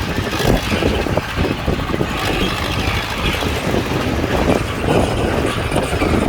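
Bulldozer's diesel engine running continuously while it pushes soil, with an uneven low rumble.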